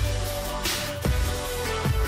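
Background electronic music with a steady beat: deep bass drum hits that drop in pitch, over held synth notes and hi-hat.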